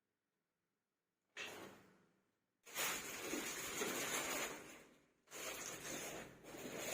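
Handling noise while unpacking and assembling a green screen kit: a brief rustle, then three longer stretches of rustling and scraping.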